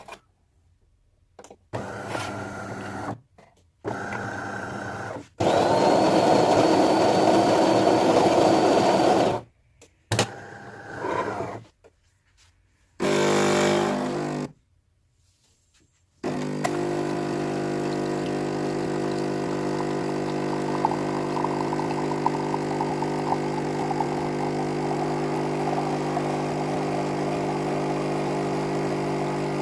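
A string of short machine and household noises cut one after another: a loud whirring with a steady high whine for about four seconds, then from about sixteen seconds a steady motor hum.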